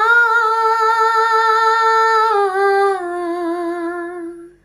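A woman singing a long held 'aaa' note without accompaniment, stepping down in pitch twice and fading out near the end.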